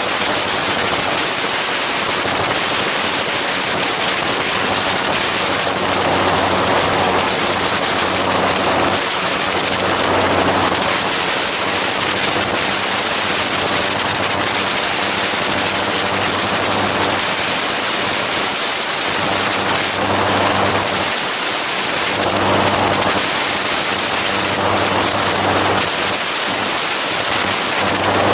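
Gyroplane in flight: the steady drone of its engine and propeller under a heavy rush of wind on the microphone. The engine note swells and fades a few times.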